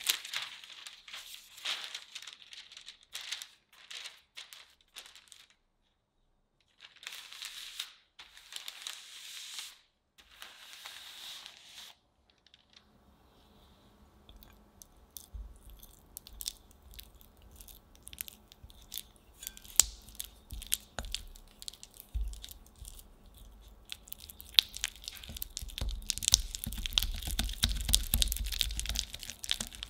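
Parchment paper crinkling in short bursts as a spatula presses and spreads cookie dough on it. Then a silicone-coated wire whisk clicks and scrapes against a glass bowl as it works cubes of unsalted butter, starting with scattered taps and becoming faster and denser near the end as the butter is creamed.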